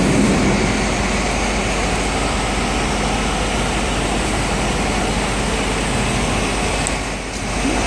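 Steady city street din of running engines and traffic, a continuous low rumble and hum that dips briefly near the end.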